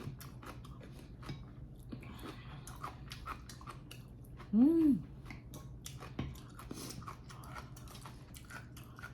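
A person chewing food close to the microphone, with many small mouth clicks. About halfway through there is one short hummed "mm" that rises and falls in pitch.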